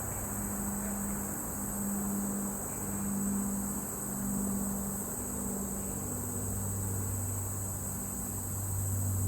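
Steady high-pitched chorus of crickets and other insects in swampy woods, with a low hum underneath that swells slightly near the end.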